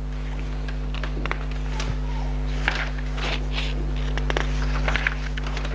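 Paper rustling and book pages being handled, with scattered light clicks, most of it in the second half, over a steady low electrical hum.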